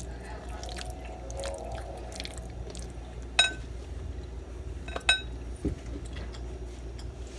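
A plastic fork clinks twice against a bowl of pasta, about three and a half and five seconds in, each clink with a brief ring.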